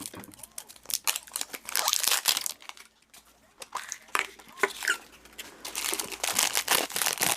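Crinkling and tearing of a blind-bag toy wrapper being opened by hand, in irregular crackly spurts with a brief pause partway through.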